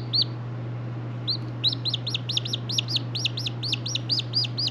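Two-day-old chick peeping loudly: a single peep, a short pause, then a fast run of repeated peeps, about five a second, each rising then falling in pitch.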